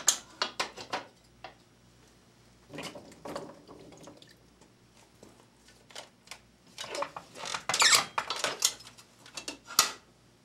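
Floor corker driving a cork into a glass wine bottle: a few knocks and clinks as the bottle is handled and set on the stand, then a run of squeaks and clatter near the end as the lever is pushed down and the cork is squeezed in.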